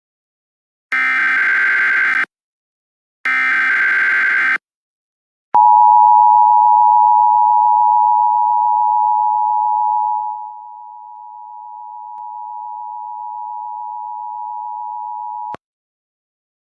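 Emergency Alert System signalling. First two buzzy digital data bursts of about a second each: the end of the SAME header. Then the attention signal, a steady dual tone of about ten seconds that drops in level halfway through and cuts off abruptly.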